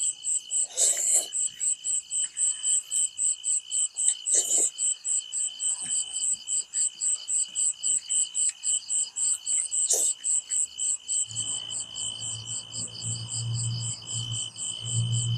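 A steady chorus of night insects, pulsing about three times a second, with a few short smacks and clicks of eating about one, four and ten seconds in. A low rumble joins about eleven seconds in.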